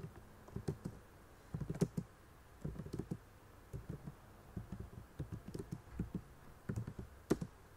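Computer keyboard typing: short bursts of quick keystrokes with brief pauses between them.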